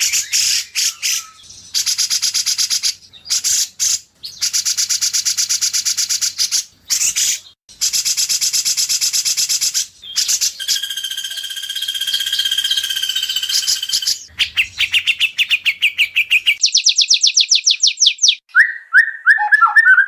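White-rumped shama song, edited into a continuous string of rapid repeated-note bursts and rattles, each lasting a second or two with short gaps between. About halfway through comes a held, steady whistle of about three seconds, and near the end a series of quick falling notes.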